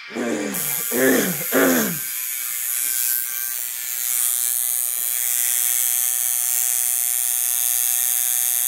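Tattoo machine running with a steady electric buzz, switched on about half a second in and held at an even speed.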